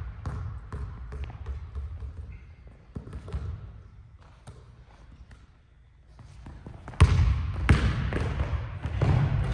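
Basketball being dribbled on a hardwood gym court: a run of steady bounces, a lull of a few seconds, then hard, quick dribbles from about seven seconds in.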